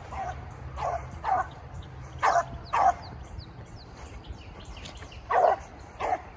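Beagle hound baying in short, pitched barks, mostly in pairs, with a pause of a couple of seconds midway.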